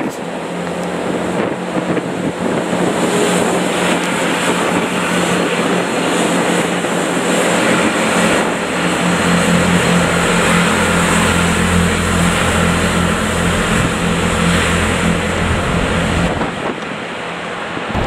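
Networker Turbo diesel multiple unit running at the station: a steady low engine drone under wheel and rail noise, dropping away about a second and a half before the end.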